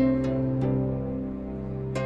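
Soft background music: a few plucked notes ringing out over held tones.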